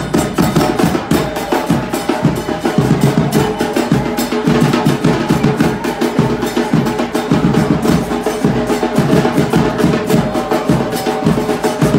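Supporters' drums beating a fast, steady rhythm of many strikes a second, loud and continuous, with deep bass-drum hits and sharper, higher-pitched strikes.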